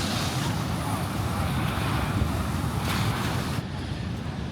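Wind buffeting the microphone over the steady wash of sea surf; the high hiss thins out near the end.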